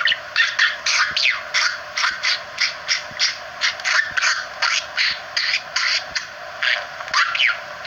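A parrot squawking and chattering in quick, short, high calls, about three or four a second, some sliding in pitch.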